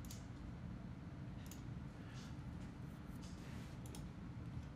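A few faint, scattered computer mouse clicks over a low steady hum.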